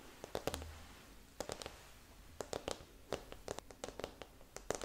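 Fingers and nails handling a plastic neon wall lamp: a series of irregular soft taps and clicks on its tubing and frame.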